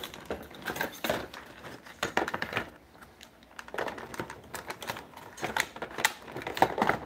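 Irregular plastic clicks, taps and rattles from a folding plastic quadcopter being handled and lifted out of its foam packaging, its arms and propellers knocking about. The clicks come in uneven clusters.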